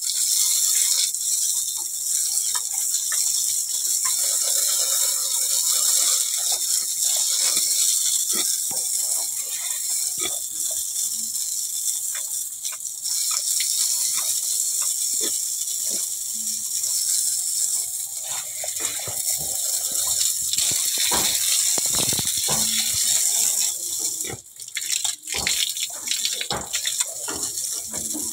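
Water spraying from a hose onto a wet concrete pen floor, a steady hiss with splashing that dips briefly near the end. A few knocks are scattered through the second half.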